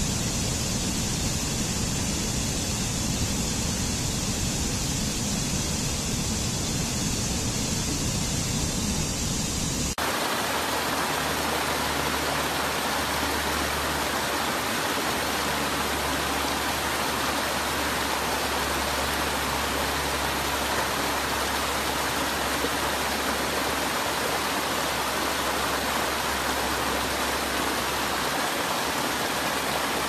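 Rushing water of a rocky stream pouring over small cascades: a steady hiss of falling water. About ten seconds in it changes abruptly to another stream spilling over low rock ledges, with a more even rush.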